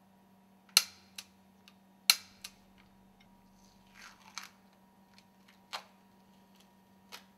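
Click-type torque wrench on the stuffing box housing bolts clicking as each bolt reaches its set torque: two sharp metallic clicks about a second and a half apart, each followed by a softer click. A few lighter clicks and knocks follow from hand work on the parts.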